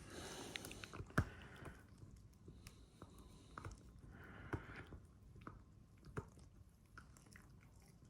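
A dog chewing a treat: irregular crisp bites and clicks of its teeth, the sharpest about a second in.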